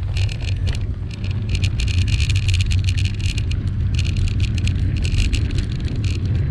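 Wind buffeting a bicycle-mounted camera's microphone as a low, steady rumble while riding, with stretches of rapid ticking from the bicycle's freewheel as the rider coasts.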